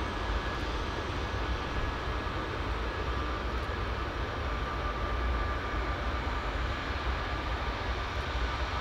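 Boeing C-17 Globemaster III's Pratt & Whitney F117 turbofan engines running at low taxi power as the aircraft rolls slowly past: a steady jet rumble with a thin high whine held on one pitch.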